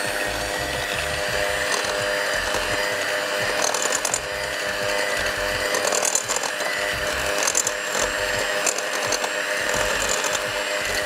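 Anex electric hand mixer running steadily, its beaters creaming butter and sugar in a glass bowl, with a few sharp clicks along the way.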